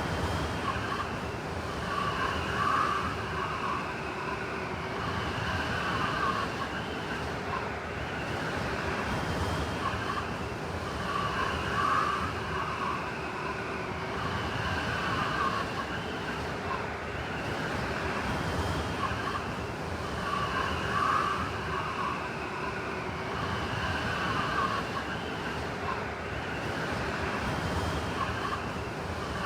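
Blizzard wind howling over a steady rush of noise, with whistling tones that swell and fade in gusts every few seconds.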